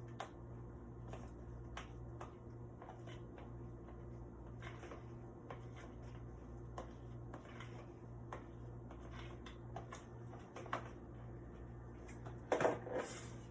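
Light kitchen handling sounds: scattered small clicks and knocks of utensils and cookware over a steady low hum, with a louder clatter near the end.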